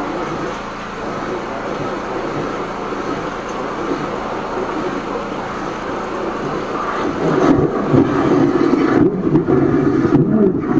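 High-pressure drain jetter blasting water through a blocked rainwater drain pipe with a turbo drill nozzle, making a steady rushing noise with splashing water. It grows louder and rougher about seven and a half seconds in.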